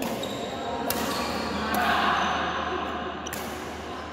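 Badminton rackets striking a shuttlecock during a doubles rally: three sharp smacks, at the very start, about a second in and about three seconds in, echoing in a large hall.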